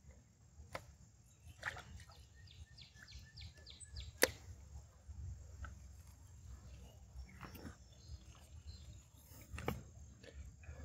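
Faint handling sounds of a fishing rod and reel as a small fish is reeled up and lifted from the water: scattered clicks and knocks, a quick run of light ticks about two to three seconds in, and one sharp click about four seconds in, over a low rumble.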